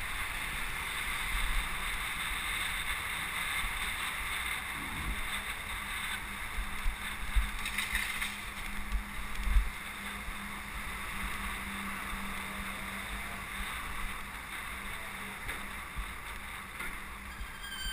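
Wind and road noise over a bicycle-mounted camera's microphone while riding through city traffic, a steady rushing hiss. A handful of low thumps come about halfway through.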